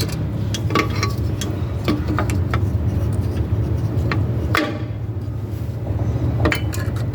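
Irregular light metal clicks and clinks of a drum brake's shoe hold-down spring and retaining clip being worked into place with vise-grip pliers, over a steady low hum.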